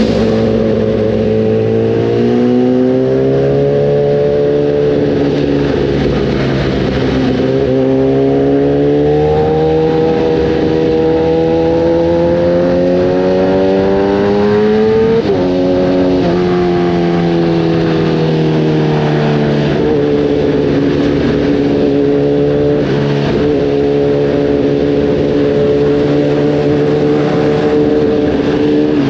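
Kawasaki ZX-10R's inline-four engine through an Arrow racing exhaust, under way: revs climb slowly over several seconds, drop sharply at a gear change about halfway through, then hold fairly steady and ease off near the end.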